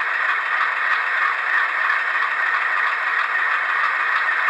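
LokSound sound decoder in an HO-scale Bowser ALCO C-628 model locomotive playing its diesel idle through the model's small speaker while the model stands still. The sound is steady, thin and noise-like, with little bass.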